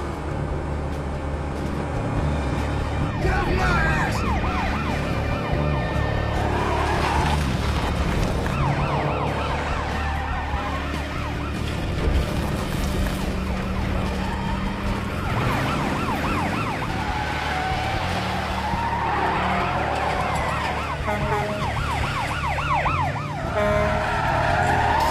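Car-chase sound: car engines running hard under repeated wavering tyre squeals and a police siren wail.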